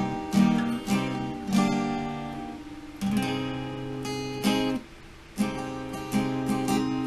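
Guitar being strummed in a slow, uneven rhythm of chords, each left to ring before the next, with a brief break about five seconds in.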